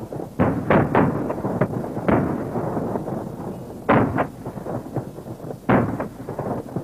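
Gunfire: about ten irregularly spaced shots, some in quick pairs, each with an echoing tail.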